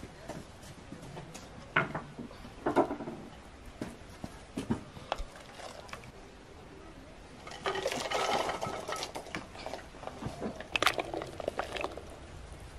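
Pieces of goose meat tipped from a clay dish into a pot of boiling water, a splashing rush about eight seconds in that is the loudest sound. Scattered knocks and clinks of the dish and a wooden spoon against the metal pot come before and after it.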